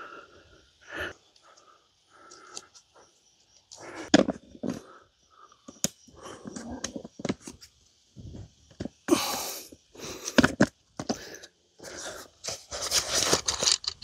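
Camp gear being handled while a small folding camp table is unpacked and assembled: irregular rustling of a fabric bag with light clicks and knocks of the table parts, and a louder rustle about nine seconds in.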